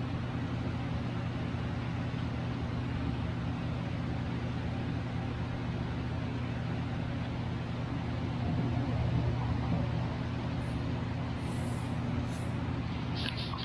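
Steady low mechanical hum with a constant rushing noise, a little louder around the middle; a few short high chirps near the end.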